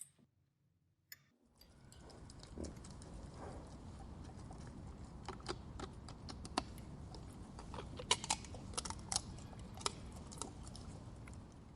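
Antique ice crusher being cranked, a steady grinding rattle with many irregular sharp cracks and clicks over it, starting after about a second and a half of near silence and fading near the end.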